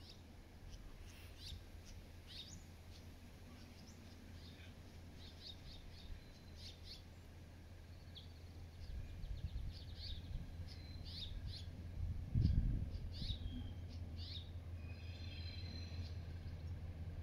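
Scattered short bird chirps and calls in open bushland over a steady low rumble, with one low thump about twelve seconds in.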